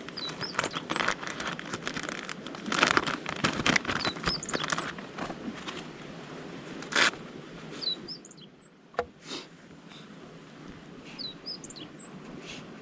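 Small birds chirping, short high notes in groups every few seconds, over rustling and crinkling with scattered clicks, and a louder rustle about seven seconds in.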